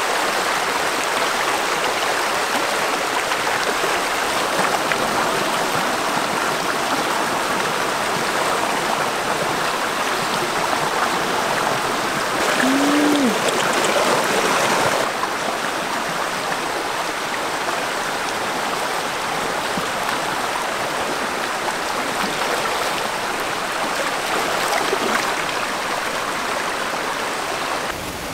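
Shallow rocky stream rushing steadily over stones. A short low tone rises and falls about halfway through.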